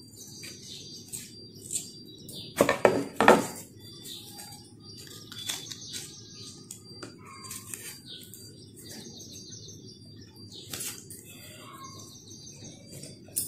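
Scissors snipping paper and paper being handled, with sharp rustling strokes loudest about three seconds in. Small birds chirp faintly in the background several times.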